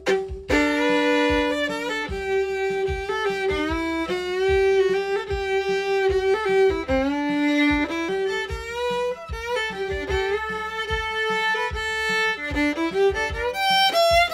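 Solo fiddle, bowed, playing the vocal melody of a bluegrass tune as the opening of a break, with slides into notes and passages of two strings sounding at once.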